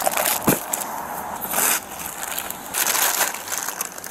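Large clear plastic bag crinkling and rustling as it is handled, in irregular loud bursts, with a sharp click about half a second in.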